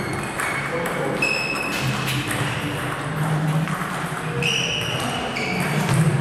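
Table tennis ball clicking off bats and table in play, with short high squeaks of shoes on the court floor.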